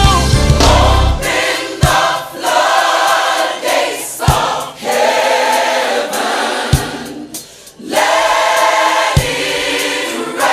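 Gospel choir singing a slow worship song, with a short low beat about every two and a half seconds. The deep bass accompaniment drops out about a second in.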